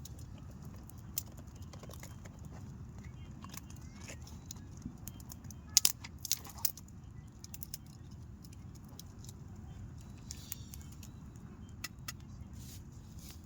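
Camping gear being handled: scattered clicks and clinks, with a cluster of sharp clacks about six seconds in, over a steady low rumble.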